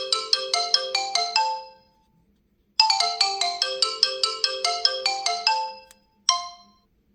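OnePlus 11 ringtone: a quick melody of struck notes, about five a second, that fades out, plays again from the start, then gives one last single note.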